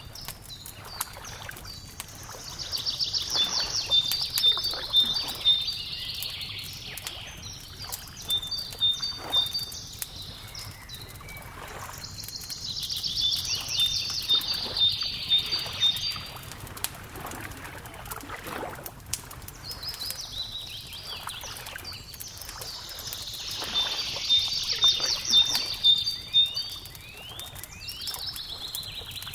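Songbird singing several long trilling phrases a few seconds apart, over a wood fire crackling with small scattered pops and a soft wash of lapping water.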